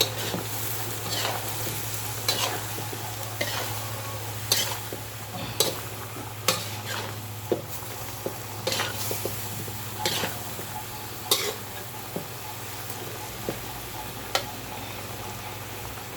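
A utensil stirring food in a cooking pot, knocking against the pot roughly once a second over a steady sizzle, with a low hum underneath.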